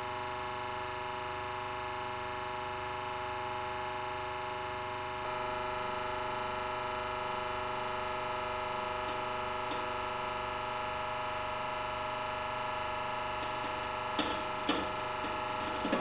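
Hydraulic press humming steadily as it squeezes a tooth, a little louder about five seconds in. Near the end the tooth gives way with a few sharp cracks as it splinters under about half a tonne.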